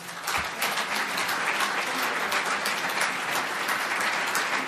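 Audience applauding, many hands clapping, breaking out suddenly and holding at an even level.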